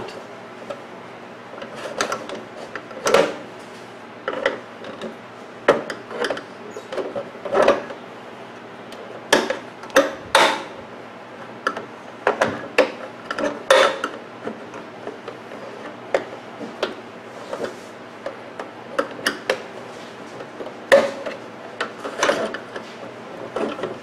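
Flathead screwdriver prying at the plastic seal cover around a microwave oven door: irregular clicks, taps and scrapes of metal tool on plastic, some louder than others.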